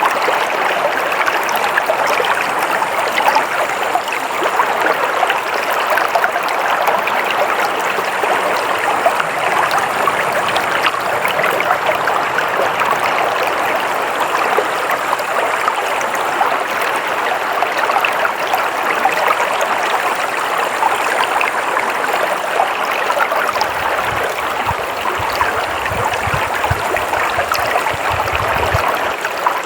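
A stream of water flowing and splashing steadily in a continuous rush. A low rumble joins it for the last several seconds.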